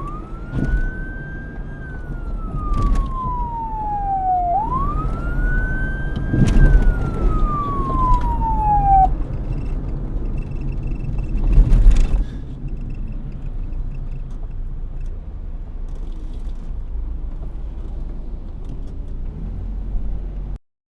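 Police car siren on a slow wail: two long cycles, each rising quickly and then falling slowly, that cut off about nine seconds in. A steady low vehicle rumble carries on after the siren stops, with a few sharp knocks, the loudest about twelve seconds in.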